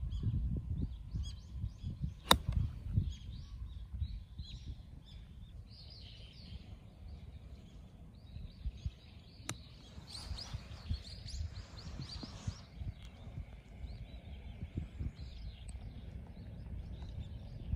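Golf club striking a ball: one sharp click about two seconds in and a fainter, more distant one about halfway through, followed by a couple of seconds of rushing noise. Wind rumbles on the microphone and small birds chirp throughout.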